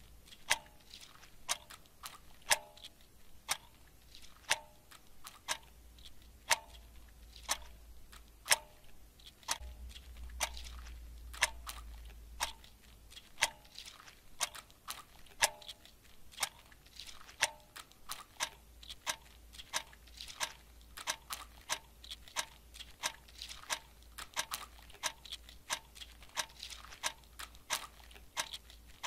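A clock ticking steadily, about one tick a second, quickening to about two ticks a second two-thirds of the way through.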